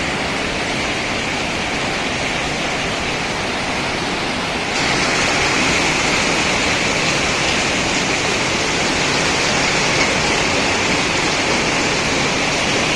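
Heavy rain pouring down steadily, a dense even hiss; it grows louder and brighter about five seconds in.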